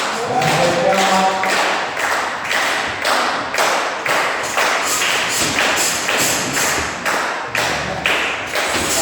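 Audience clapping in a steady rhythm, about two claps a second, with a shout over the first second or so.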